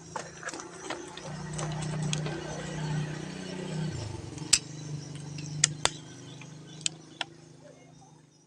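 A steady low hum that drops in pitch about four seconds in, with a handful of sharp clicks in the second half.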